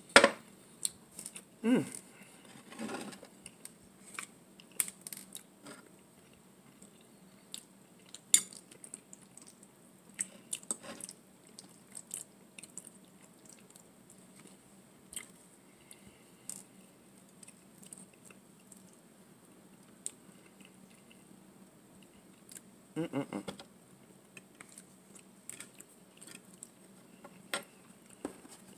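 A person eating bow-tie pasta in meat sauce and garlic bread close to the microphone: chewing and mouth noises, with scattered sharp clicks and taps as a metal fork works in a glass dish. A short cluster of louder mouth sounds comes just under two seconds in, another near three seconds, and a denser one about twenty-three seconds in.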